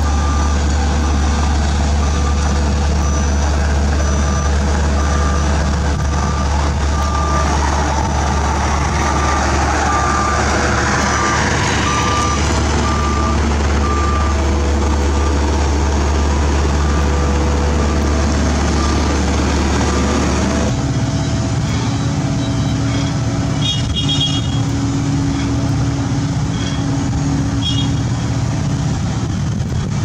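Heavy diesel road-building machinery running, with a reversing alarm beeping in a steady rhythm for most of the first two-thirds. About twenty seconds in, the deep engine drone drops away and a different engine note takes over.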